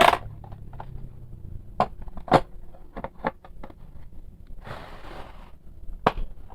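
Hand tools from a bicycle tool kit being handled: a sharp knock at the start, then several lighter clicks and knocks of metal tools against each other and their case, with a short rustle about five seconds in.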